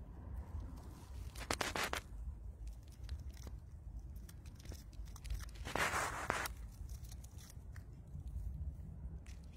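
A striped field mouse gnawing at a peanut shell held out in the hand: a run of small crunching clicks, with two louder crackling bursts, about a second and a half in and again around six seconds in.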